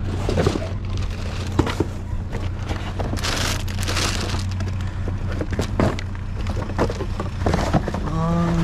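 Rummaging through trash in a dumpster: irregular knocks, clatters and rustling of junk being moved, over a steady low hum.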